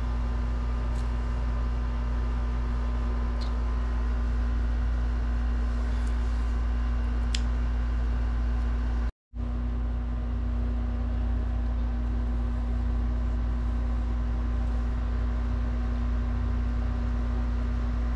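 Steady mechanical hum with a low rumble and a constant tone. It cuts out completely for a split second about halfway through, then carries on unchanged.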